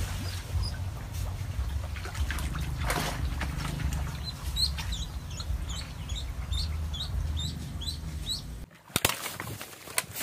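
Thrashing and splashing in the water as a hooked snakehead is fought in on a rod, with a low rumble under it. In the middle comes a run of short, high rising chirps, about three a second. Near the end there is a brief dip, then a noisy clatter of handling.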